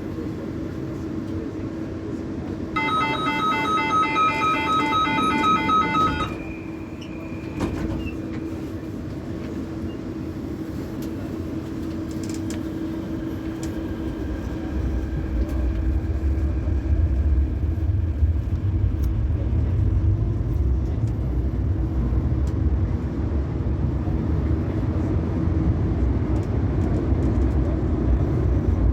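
CAF Série 500 Fase II metro train: the door-closing warning signal, a rapid pulsed electronic beeping, sounds for about three seconds starting near three seconds in, over a steady hum. From about halfway a low rumble builds and stays loud as the train gets under way.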